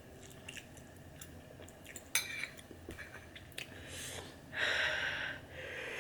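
Eating sounds from someone eating very spicy ramen noodles: small clicks of a utensil against the bowl and chewing, with a sharp clatter about two seconds in. Near the end come two long airy mouth sounds, the first one louder.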